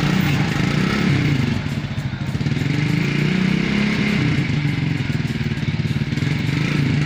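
A small engine idling steadily.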